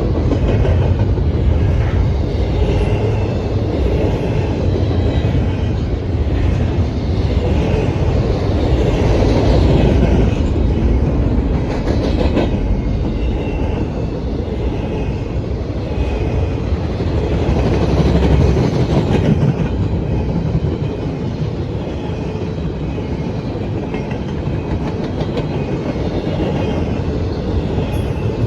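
Freight train cars rolling past, with a steady heavy rumble and wheels clacking over the rail joints, plus faint high wheel squeals.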